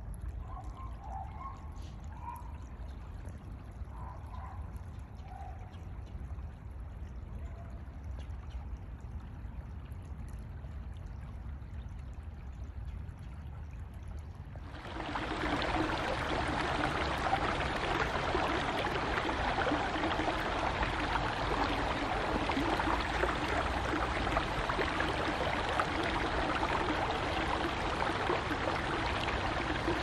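Shallow creek water running over stones, faint at first, then after a sudden jump about halfway through a loud, steady rush of flowing water close by.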